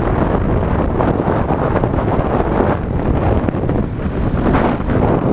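Wind buffeting the microphone on a moving Honda Super Cub, with the small single-cylinder four-stroke engine, freshly rebuilt, running underneath at cruising speed.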